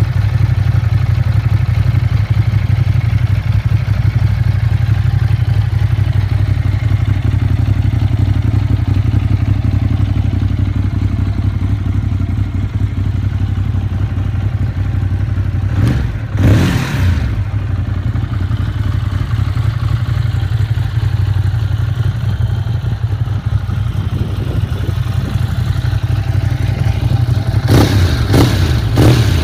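Ducati Monster 821's 821 cc L-twin engine idling on its standard exhaust, with a lumpy, steady note. It is revved briefly about halfway through and given a few quick blips near the end.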